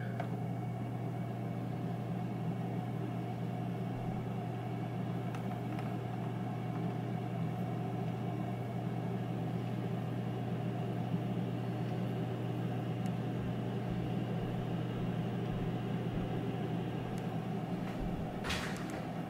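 Power XL air fryer running a cooking cycle: its fan motor gives a steady low hum over an even rush of air.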